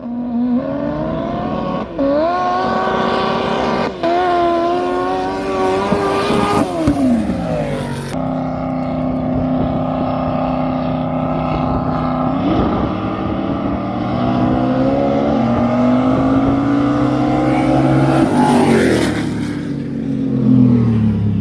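Drag car engine accelerating hard, its pitch climbing with two quick dips at gear changes, then falling as the throttle comes off. After an abrupt cut, an engine runs more steadily, then rises and falls again near the end.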